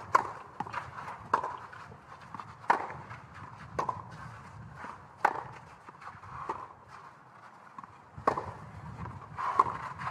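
Tennis rally: the ball is struck by racket strings every second or so, with smaller ball bounces and shoe scuffs between the strikes, and one gap of about three seconds near the middle.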